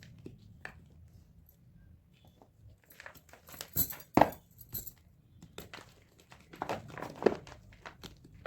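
Pressed gym chalk blocks being crushed, crunching and crumbling in clusters of sharp crackles. Quiet at first, the crunching starts about three seconds in, with the loudest snap a little after that and another run of crunches near the end.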